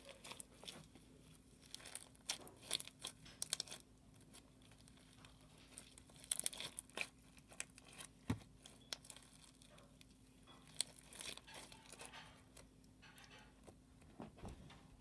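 Jelly cube slime, slime with foam cubes mixed in, being kneaded and squeezed by hand: irregular sticky clicks and crackles in short clusters.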